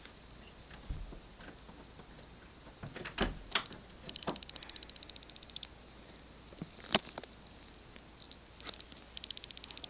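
Rapid runs of thin, high clicking, about fifteen clicks a second, about four seconds in and again near the end, with a few louder single clicks and taps around three and seven seconds in.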